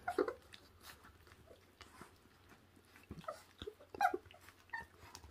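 A litter of puppies chewing and tearing at raw meat on the bone: faint scattered clicks and wet chewing, with a few brief squeaky puppy noises about three to four seconds in.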